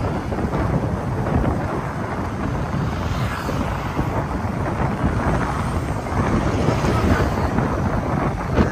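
Steady rumbling wind noise buffeting the microphone outdoors, with a short knock near the end.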